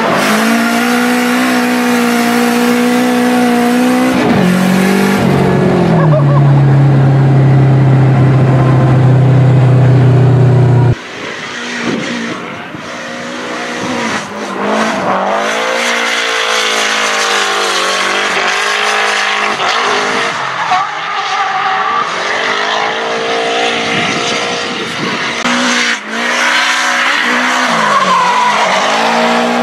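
Turbocharged SR20DET four-cylinder engine in a Nissan S13 drift car, held at high revs during a drift. Its pitch holds steady, then drops to a lower steady pitch about six seconds in. From about eleven seconds the revs rise and fall repeatedly, with tyres squealing as the car slides.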